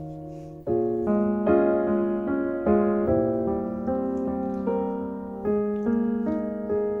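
Background piano music: a slow melody of single notes, two or three struck each second, each dying away.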